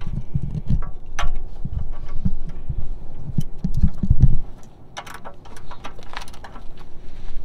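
Sharp metallic clicks from a wrench on the 17 mm oil drain plug as it is tightened under the car. A low rumbling runs underneath and drops away about four and a half seconds in.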